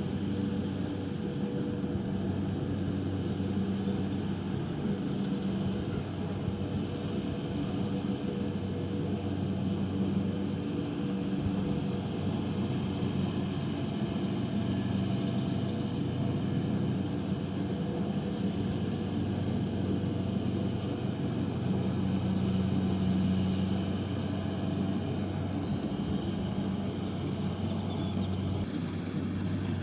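Engine of a rice harvesting machine running steadily at constant speed.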